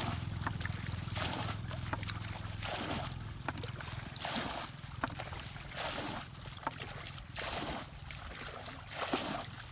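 A plastic bucket scoops muddy water from a shallow ditch and throws it out, with a splash and pour about once a second. This is bailing the ditch to drain it and catch the fish.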